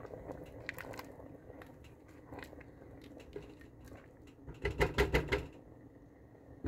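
Spatula stirring a simmering pot of lentils and pasta: soft clicks and light bubbling, with a louder spell of stirring about five seconds in.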